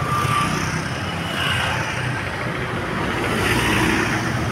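A bus engine running close by, with steady road traffic noise.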